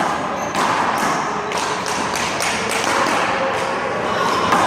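One-wall handball rally: a rubber handball smacked by hands and bouncing off the wall and court, an irregular run of sharp slaps.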